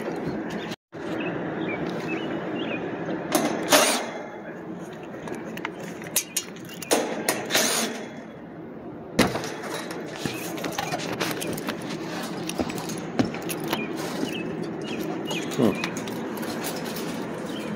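Steady mechanical hum of an outdoor air-conditioning condensing unit running, with scattered clicks and knocks of handling; the loudest knock comes about four seconds in.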